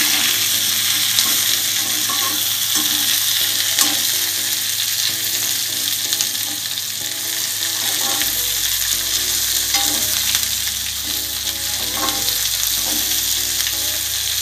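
Potato and cauliflower pieces sizzling in hot oil with cumin and garlic in a steel kadhai, stirred and scraped with a perforated steel spatula, with a few short clinks of metal on metal.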